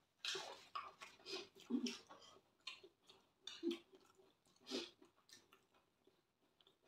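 Close-miked chewing of a mouthful of rice and beans, with soft wet mouth sounds coming in irregular bursts.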